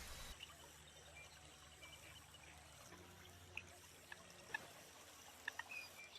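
Faint, scattered short call notes of a purple gallinule, a few single notes in the second half, over near silence.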